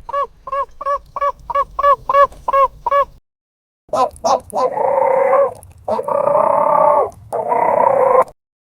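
A small dog yapping in a quick run of short yips, about four a second. After a short pause come three longer, harsh animal calls, the first the longest.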